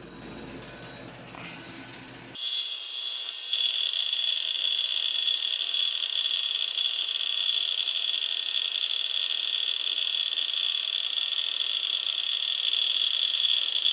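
Electronic buzzer sounding one continuous high-pitched tone, starting abruptly about two seconds in after a whirring machine noise, and holding steady to the end.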